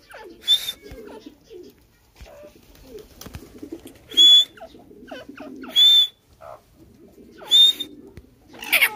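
Francolin (tetar) calling: four loud, short, harsh calls, each with a whistled note, spaced about one and a half seconds apart and with a longer gap after the first, and a fifth call near the end. Softer chirps come between the calls.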